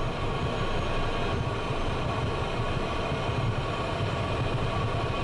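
Cessna Citation business jet's turbofan engines running during taxi, heard from the cockpit as a steady low rumble with a faint steady whine.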